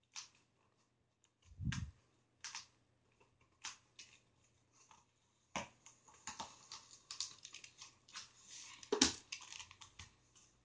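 Box cutter slicing the packing tape on a cardboard carton: scattered clicks and scrapes, a dull thump near two seconds in, then denser scraping and rustling of cardboard in the second half, with the loudest sharp crack about nine seconds in as a flap comes free.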